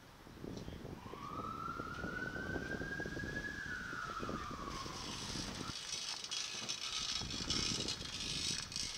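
Passing street traffic with low rumbling throughout. A single whine rises slowly in pitch over a few seconds, then falls away. A steady hiss joins about halfway through and stops abruptly near the end.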